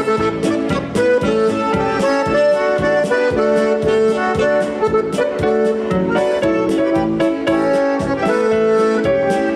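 Polka band playing an instrumental break, an accordion carrying the melody over a steady oom-pah beat.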